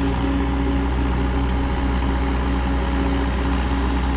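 A heavy machine's engine running steadily at an even speed, a constant low drone with no change in pitch.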